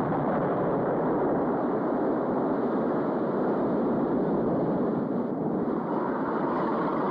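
Torpedo boat running at speed: a steady, even roar of engine, wind and rushing water.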